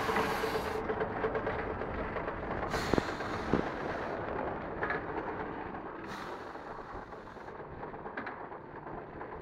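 Muller Martini DS 240 three-knife book trimmer running: a continuous mechanical clatter with two sharp knocks about three seconds in and brief bursts of hiss, growing slightly fainter toward the end.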